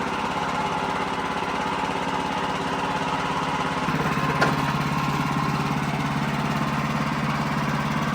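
Wood-Mizer LX55 portable sawmill's engine running steadily, its tone becoming heavier about four seconds in, with one sharp click soon after.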